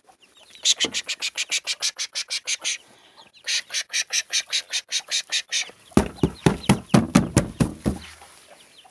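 Hens being chased out of a garden, scrambling off through grass and plants: three fast runs of short rustling beats, about seven or eight a second. The last run is louder and deeper.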